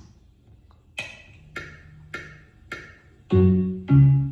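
Keyboard accompaniment of a children's song starting up: four short, high, ringing ticks at an even beat like a count-in, then loud low keyboard notes near the end.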